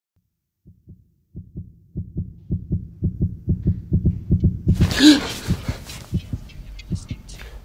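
A fast heartbeat sound effect: low thumps at about four to five a second, growing louder. About five seconds in comes a short rush of noise, after which the beats thin out and sharp clicks come in.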